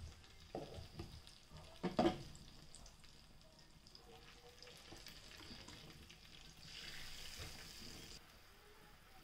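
Sauce sizzling and bubbling in a hot frying pan while a silicone spatula stirs and scrapes through it. A few short knocks come in the first two seconds, the loudest about two seconds in, and the hiss swells briefly near the end.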